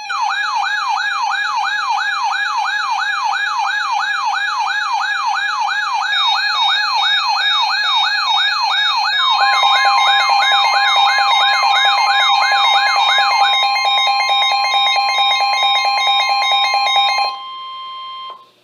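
Weather-alert radio alarm tones for a severe thunderstorm warning. An electronic warbling alarm sweeps up and down about two and a half times a second. About nine seconds in, a steady tone and a fast pulsing beep join it. The warble stops partway through, and the pulsing cuts off about seventeen seconds in, leaving the steady tone alone for a moment before it ends.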